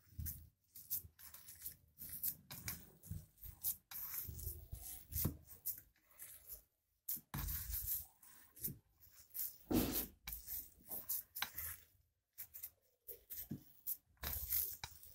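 A hand squishing and mixing mashed boiled-potato stuffing in a stainless steel bowl: irregular squelching and rubbing, with the food and fingers working against the bowl's side.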